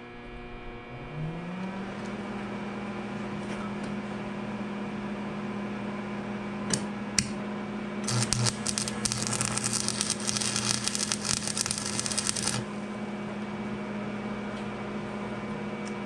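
Old stick (arc) welder humming steadily, its hum rising in pitch as it comes on about a second in. About eight seconds in, an arc struck with a 7014 electrode crackles for about four and a half seconds while it lays a small nub of weld on the thin steel of a sawmill log stop, then cuts off. Two sharp clicks come just before the arc.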